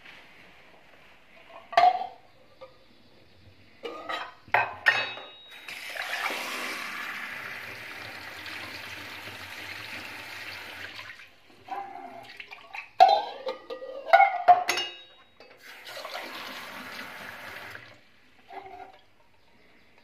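Kitchen tap running water into a pot or sink for about five seconds, then again for about two seconds. Sharp clatters of pots and dishes come before and between the two runs of water.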